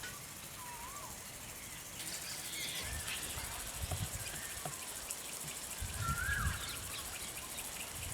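Outdoor nature ambience: a few short, warbling bird calls over a steady high hiss, with some brief low rumbles.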